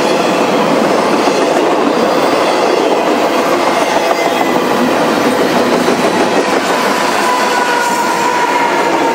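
Double-stack intermodal container freight train passing close by: steady clatter and rumble of its wheels on the rails, with faint thin squealing tones from the wheels.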